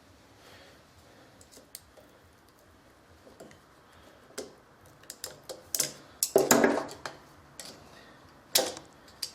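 Metal parts of a milling machine head clicking and clinking under hand work as a thinned retaining ring is refitted and tried, with a short scraping slide a little after the middle and a sharp knock near the end.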